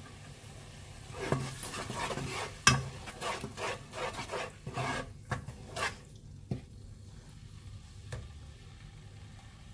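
Black spatula stirring and scraping blended chilli-and-onion paste as it fries in oil in a nonstick pot: a run of quick scraping strokes over the sizzle. Near the end the stirring eases and only a quieter sizzle is left.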